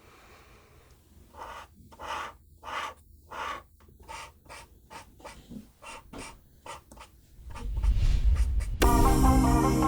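A run of short scratching strokes on paper, about two a second, as of drawing. Near the end a low swell rises and background music begins.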